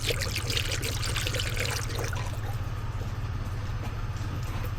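Coolant pouring steadily into the 2000 Nissan Altima's cooling system while it is refilled after a thermostat change, with a steady low hum underneath.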